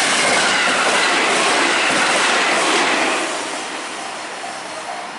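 A train passes close by at speed, loud for about three seconds and then fading as it moves away. A level crossing warning bell rings in a repeating tone, faint under the passing train and clearer again near the end.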